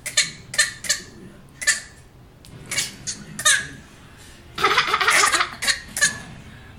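A baby making short, breathy, laugh-like bursts over and over, at uneven gaps and in a longer run near the end, which the listener takes for coughing.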